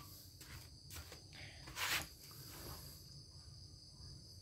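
Steady high-pitched insect trilling in the background, with one short rustle of handling about two seconds in.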